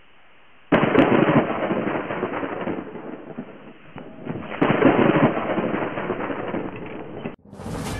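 Logo-intro sound effect of fiery, crackling bursts like fireworks: two sudden loud bursts about four seconds apart, each crackling away over a few seconds, then cutting off about seven seconds in.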